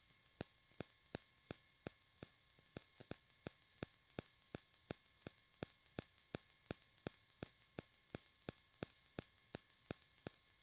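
Near silence: faint electronic hiss and hum with sharp clicks about three times a second, the noise of a recording whose sound was lost because a headset was plugged in.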